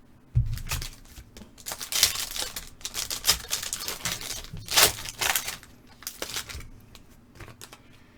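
Foil trading-card pack being torn open and its wrapper crinkled, with irregular crackling rustles. A dull thump comes just after the start.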